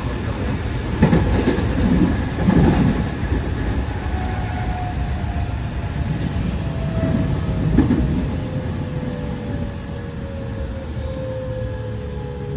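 JR West 207 series electric train running, with wheel clatter over rail joints in the first few seconds and again around 8 s. From about four seconds in, the whine of the Toshiba GTO inverter and traction motors falls steadily in pitch as the train slows.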